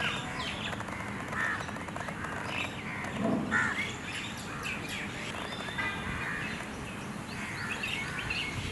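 Wild birds chirping and calling: many short calls scattered throughout over steady background noise, with one lower, louder call about three seconds in.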